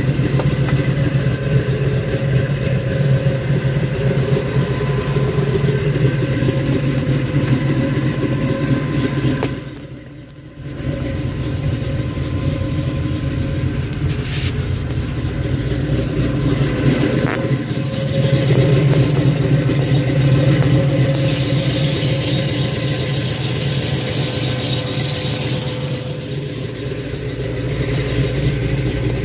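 1970 Ford Mustang Mach 1's V8 engine idling steadily. The sound dips briefly about a third of the way in, and a high hiss lies over it for a few seconds later on.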